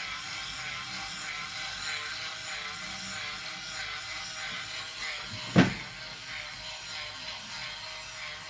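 One sharp click from handling a vintage Yashica film camera, about halfway through, over a faint steady background hiss.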